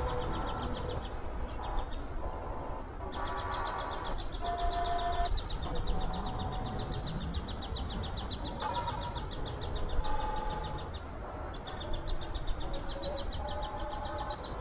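Birds calling over a steady low rumble, with a fast, even high-pitched pulsing running through most of it.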